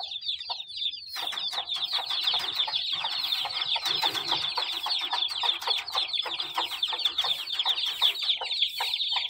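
A brood of young chicks peeping constantly in short, high, falling notes, joined about a second in by lower clucking from the mother hen.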